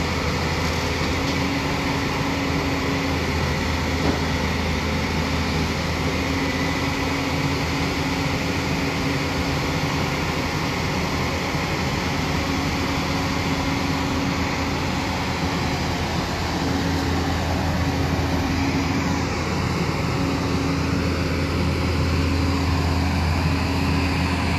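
Diesel engine of a JCB tracked excavator running steadily with a low hum as the machine crawls backward off a truck's flatbed trailer, getting a little louder near the end.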